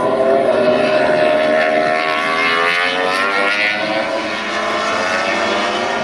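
MotoGP racing motorcycles' four-cylinder engines running at high revs as they pass, the pitch of several engines gliding up and down as they shift and brake.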